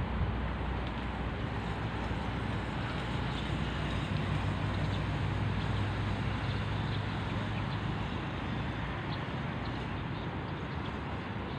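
Steady road traffic noise with wind on the microphone; a motorbike engine hum swells in the middle and fades again.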